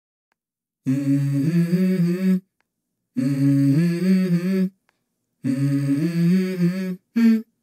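Background music: a voice humming three short melodic phrases with pauses between them, the opening of a song.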